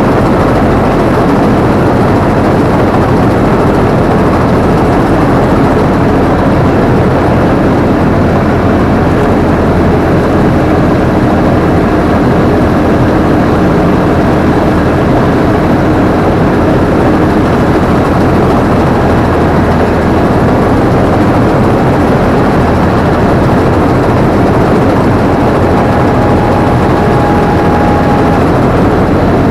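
Combine harvester's engine and machinery running steadily and loudly, heard close up from the operator's position.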